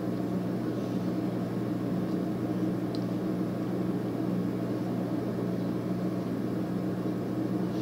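A steady low hum of a small motor running, unchanging throughout.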